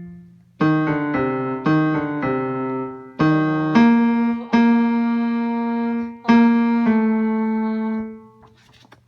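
Piano playing an instrumental interlude of sustained chords, about eight of them struck at uneven intervals, the last one ringing out and fading away near the end.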